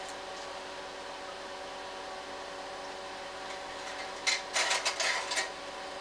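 Slide projector's cooling fan humming steadily. A quick clatter of mechanical clicks about four seconds in is the projector changing to the next slide.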